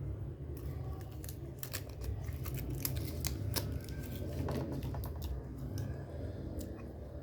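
Irregular sharp clicks and ticks of a small plastic USB hub and its packaging being handled, over a steady low hum.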